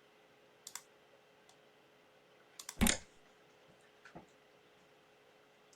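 A few scattered sharp clicks: a quick pair just under a second in, a louder knock with a cluster of clicks near the three-second mark, and a couple of small clicks about four seconds in, over a faint steady hum.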